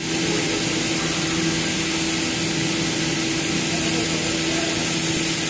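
Four-axis CNC woodworking machining center running: a steady hum under a loud, even high hiss.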